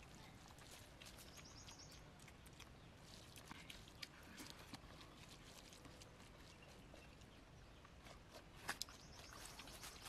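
Faint soft clicks of a hand mixing cooked white rice with fish curry on a banana leaf, with two sharper clicks a little before the end.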